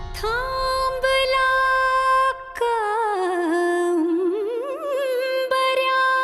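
Music: a woman singing long held notes, with a wavering run up and down in the middle and a short break about two and a half seconds in.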